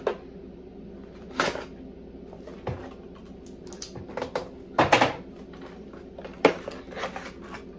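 Cardboard mailer box being handled and turned over: scattered taps, knocks and scrapes of the cardboard, with a cluster of louder knocks about five seconds in and a sharp tap about a second and a half later.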